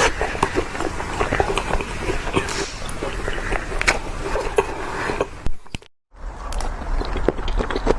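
Sweets being eaten close to the microphone: dense, irregular crunching and crackling, broken by a sudden brief silence about six seconds in.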